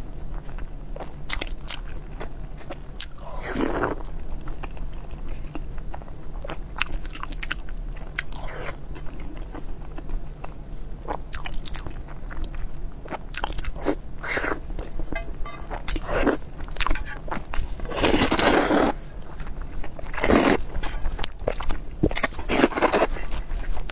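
Close-miked eating: biting and chewing with many short wet mouth clicks, and several longer slurps of hot-and-sour glass noodles sucked up from chili broth.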